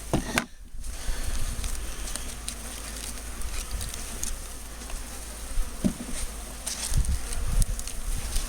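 A mass of honeybees from an opened bee package buzzing steadily in the air, with a few low bumps near the end.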